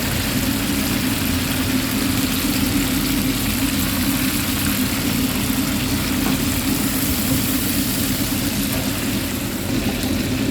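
Chicken deep-frying in oil, a steady hiss, over a continuous low engine-like hum.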